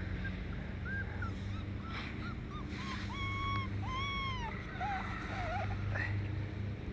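Short, high-pitched animal calls: a string of brief chirping whines, with two longer arched calls about three and four seconds in.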